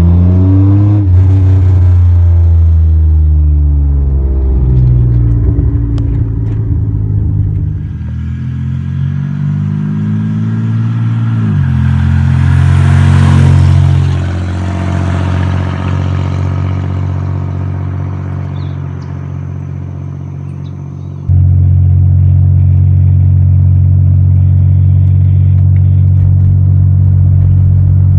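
Exhaust of a 1997 Chevrolet Camaro's 3.8-litre Series II V6 through a Cherry Bomb muffler, accelerating: the engine pitch climbs and drops back a few times, then falls away as it eases off. About two-thirds of the way through it cuts abruptly to a steady, louder low drone.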